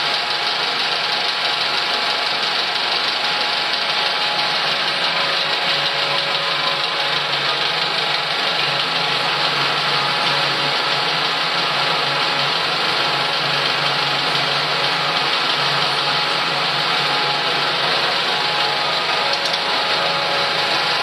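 Cinema projection-room machinery running steadily: Cinemeccanica Vic 5 35 mm film projectors with their lamphouse cooling fans and extraction, an even whirr with a few faint steady hums.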